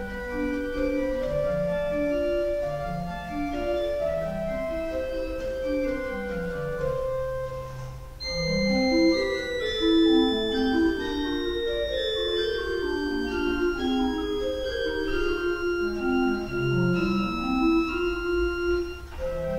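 Two-manual Simon Pierce pipe organ playing a set of variations, with a stepping bass line under held middle notes. About eight seconds in it eases briefly, then comes back louder with higher notes added above.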